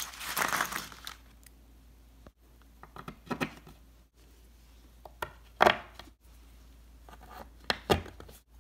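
Plastic-sleeved metal connector pins being handled and pushed one by one into pre-drilled holes in a particleboard panel. A rustle in the first second, then a handful of short sharp clicks and knocks, the loudest a little past halfway.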